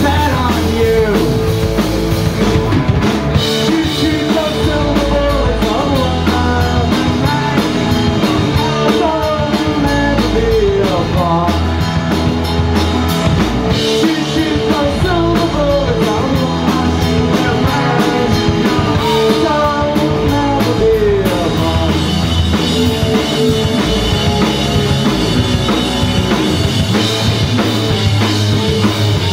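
Live rock band playing a song: electric guitars, bass guitar and drum kit, loud and continuous.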